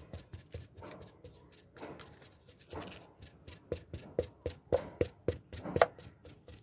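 Thin plastic bottle handled and squeezed close to the microphone: a quick run of clicks and crackles, about four a second, with rustling scrapes between them and the sharpest crack near the end.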